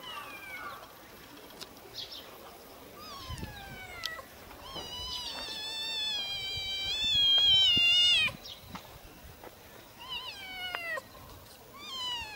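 A cat meowing over and over, a string of high falling calls, with one long drawn-out meow in the middle that is the loudest and ends abruptly.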